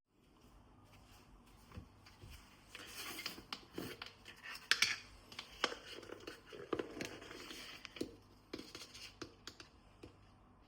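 Close-range handling noises in a quiet room: scattered sharp clicks and taps with bouts of rustling and scraping, busiest in the middle and thinning out near the end.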